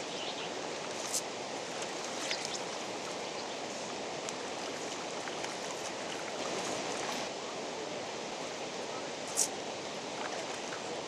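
Steady rushing of running water, with a few short sharp clicks, the loudest near the end.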